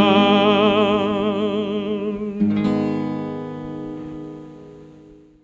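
Male voice singing a Russian romance holds its final note with vibrato over plucked-string accompaniment. The voice stops about two seconds in, and a closing plucked chord then rings out and fades away.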